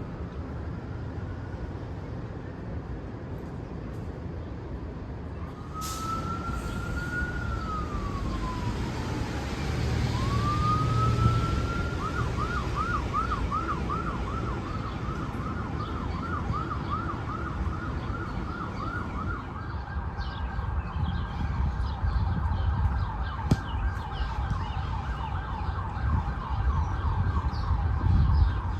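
Emergency vehicle siren passing through city traffic: a rising-and-falling wail about five seconds in, then a fast yelp at nearly three cycles a second, then a denser warble near the end, over a low traffic rumble.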